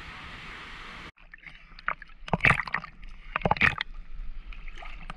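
Small sea waves sloshing and splashing against a camera held at the water's surface, in sudden irregular splashes. The first second is a steady hiss of wind and surf, which cuts off abruptly.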